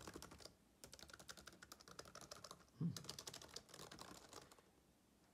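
Fast typing on a Lenovo ThinkPad T420's keyboard: quick runs of key clicks that pause briefly about half a second in and stop shortly before the end. One short low sound comes about three seconds in.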